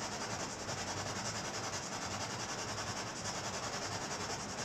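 Steady rasping static from a ghost-hunting spirit box sweeping through radio frequencies, chopping quickly and evenly, with no clear voice coming through.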